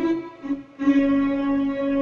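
Yamaha PSR-E433 keyboard playing a slow melody line on a sustained lead voice. A short note comes about half a second in, then one long held note from just under a second in.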